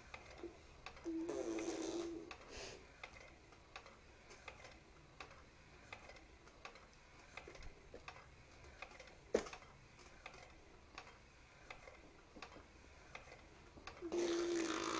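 A small child's short buzzing vocal sounds, one about a second in and another near the end, with faint scattered clicks and a single sharp click in the quiet between.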